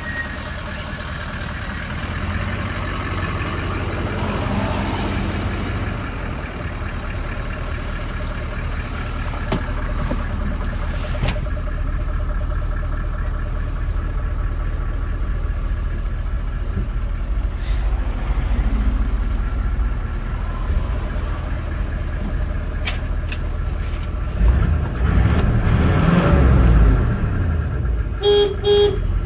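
Toyota Land Cruiser pickup's 4.5-litre V8 turbo-diesel idling steadily, with a louder low rumble a few seconds before the end. Near the end the horn gives two short toots.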